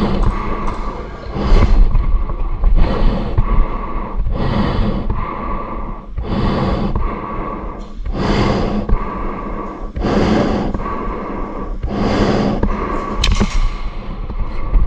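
Heavy breathing through a gas mask: loud rushes of air drawn in and pushed out in a steady rhythm, a strong breath every two seconds or so with weaker ones between.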